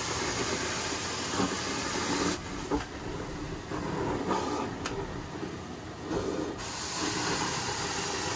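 Steady hiss of a hot water extraction carpet-cleaning wand spraying and vacuuming; the high part of the hiss drops away for about four seconds in the middle, then comes back.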